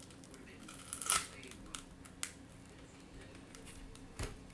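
A few sharp clicks and scrapes of small hand tools working on a tablet during screen replacement, the loudest about a second in, over a faint steady hum.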